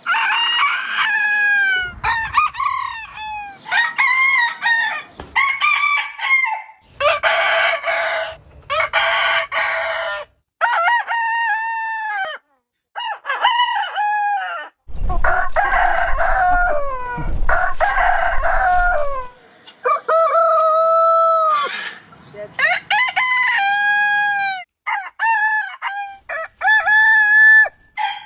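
Roosters crowing one after another: a string of long cock-a-doodle-doos at several different pitches. The sound cuts off abruptly between crows a few times.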